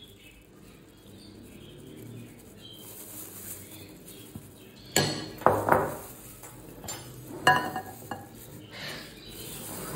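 A cut-glass plate clinking and knocking against a glass bowl as spices are tipped and tapped off it, with a quick run of sharp clinks about halfway through. Near three-quarters of the way in comes a ringing glass clink as the plate is put down.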